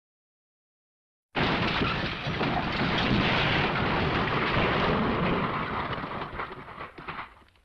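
Sound-effect recording of a loud crashing rumble that cuts in suddenly about a second and a half in, holds for about five seconds and dies away near the end.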